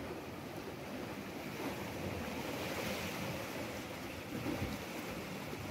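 Sea waves washing against rocks in a steady rush, with some wind buffeting the microphone.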